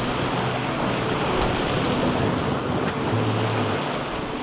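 Open-ocean waves and water rushing along a sailing boat's hull under way, a steady wash of noise with wind buffeting the microphone.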